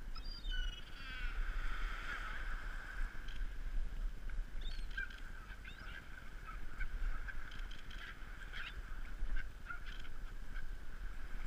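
A flock of gulls calling, many short calls scattered and overlapping, over a low steady rumble.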